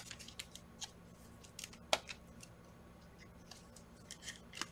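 Trading cards and card packaging being handled: scattered light clicks, taps and faint rustles, with one sharper click about two seconds in and another near the end.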